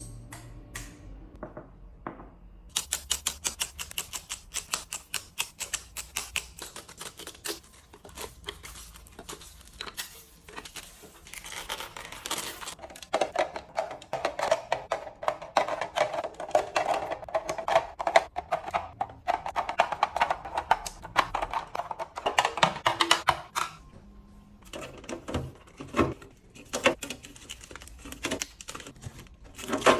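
Rapid, dense clicking and clattering of small hard items being handled, as in fridge restocking. It thins to sparser taps near the end.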